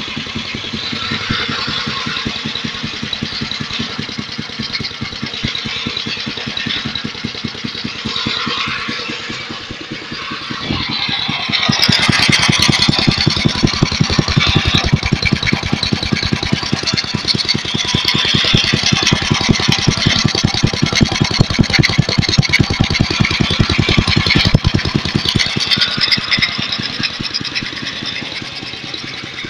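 Engine of a homemade scrap-built tractor running with a rapid, even firing pulse, its belt and pulley drive spinning. About eleven seconds in it speeds up and gets louder, then eases back a few seconds before the end.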